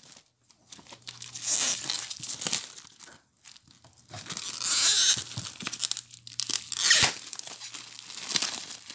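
Plastic shrink-wrap being torn and peeled off a board game box, crinkling and tearing in several bursts with short pauses between them. A single sharp knock comes about seven seconds in.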